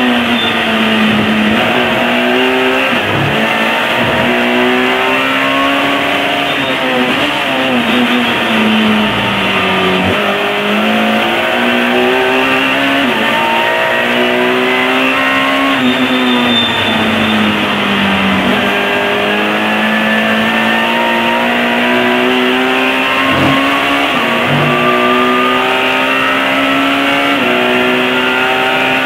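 Alfa Romeo 156 S2000 race car's 2.0-litre four-cylinder engine heard from the cockpit under hard acceleration, the pitch climbing and dropping sharply again and again as it shifts up through the gears. The revs sink back between runs as it slows for corners, with a few short sharp thumps.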